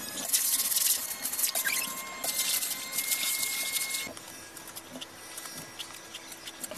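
Stiff-bristled hand broom scrubbing the wet concrete inside a water-filled basin, in scratchy swishing strokes that come in two spells over the first four seconds, then things go quieter.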